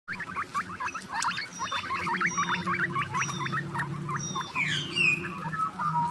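Rapid, high-pitched chirping from small animals, many short falling squeaks several a second, over a steady low hum.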